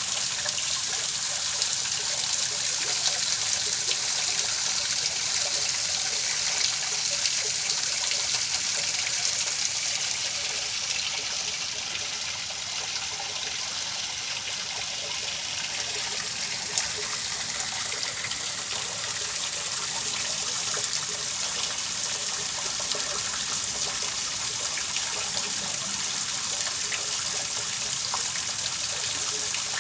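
Running water: a steady trickling, splashing hiss that hardly changes, played as white noise.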